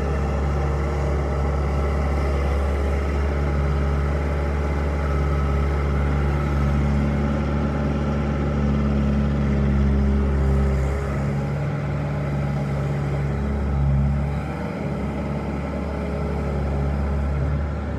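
Bobcat A300 skid steer loader's diesel engine running steadily with a deep hum. Its note shifts a little through the middle, swells briefly about two-thirds of the way through, then settles slightly quieter.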